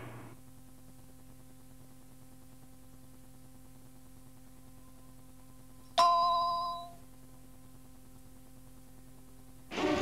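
A single bell-like chime sounds once about six seconds in and rings away over about a second: the cassette's cueing chime that marks the start of the next track. It sits over faint steady tape hiss and hum, and music starts just before the end.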